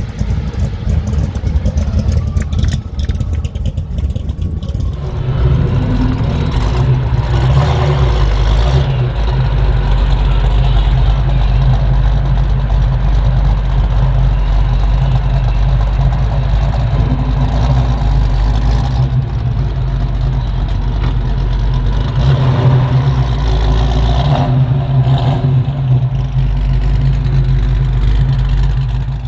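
Muscle car V8 engine running steadily with a loud, low rumble that grows louder about five seconds in.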